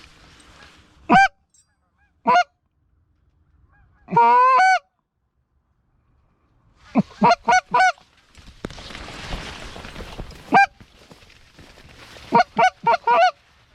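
Goose honking: sharp single honks, one longer wavering call, and two quick runs of four and five clucking honks. A soft rushing noise runs for about two seconds in the middle.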